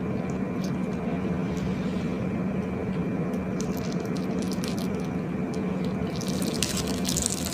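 Slime squishing with scattered small wet clicks and crackles, which grow denser near the end. A steady low hum runs underneath.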